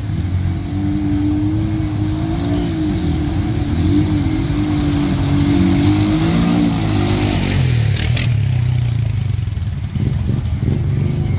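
Off-road vehicle engine running under throttle, its pitch wavering up and down, then dropping to a lower, steadier note about two-thirds of the way in as it eases off. A short rush of hiss and a couple of sharp clicks come at the same moment.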